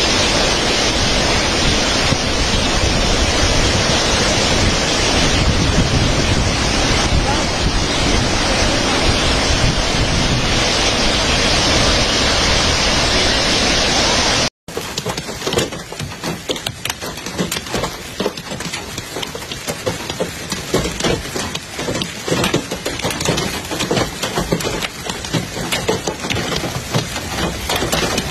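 Muddy floodwater pouring over a stepped concrete weir: a loud, steady rush. About halfway it cuts off abruptly, and after a brief gap a rougher, uneven noise follows, rising and falling quickly.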